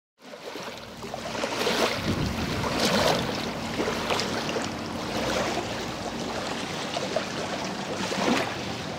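Small waves lapping and splashing on a lake shore, surging about once a second, with a low wind rumble on the microphone.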